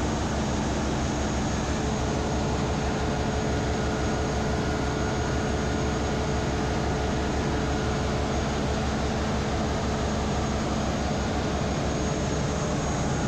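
Steady engine-room din from running marine diesel machinery: an even, unbroken noise with a few faint steady hums.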